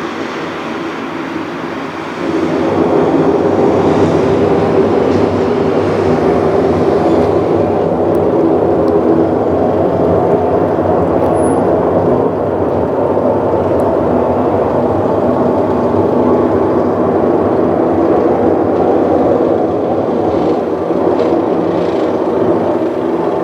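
A loud, continuous rumbling roar with no clear pitch, which gets louder about two seconds in and then holds steady. It is presented as the unexplained hum heard from the sky.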